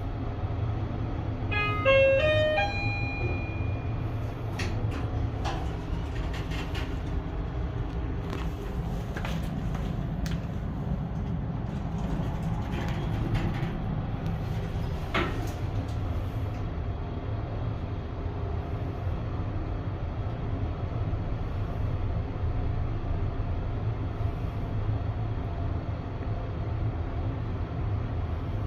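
Hyundai Elevator STVF-4 passenger elevator: a short electronic chime of stepped notes about two seconds in, then scattered clicks over the next dozen seconds, over a steady low hum of the car running.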